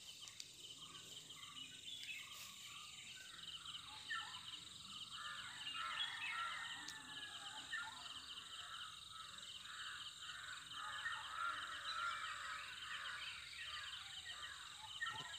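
Faint dawn chorus of many birds chirping and calling, over a steady rapid insect trill.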